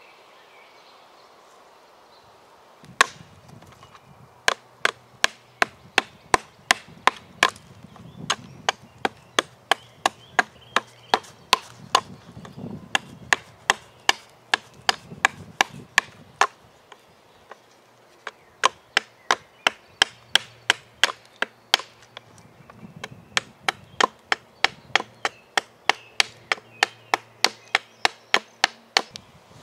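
Hatchet chopping wood in quick, steady strokes, about two or three a second, with a couple of short pauses. The light, rapid blows are typical of hewing a blank.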